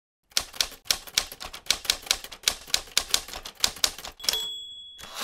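Manual typewriter keys striking in a quick run of about four to five clacks a second. About four seconds in, the bell dings at the end of the line, followed near the end by a short rattling burst as the carriage is returned.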